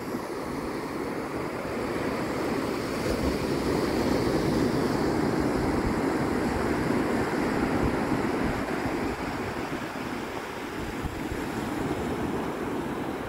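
Ocean surf breaking and washing up a flat sand beach, a steady rushing wash that swells a couple of seconds in, eases off and builds again near the end.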